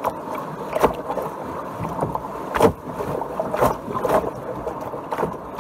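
Canoe paddling: paddle strokes and water rushing along the hull, picked up from the floor of the canoe, with about five sharp knocks against the hull, roughly one a second.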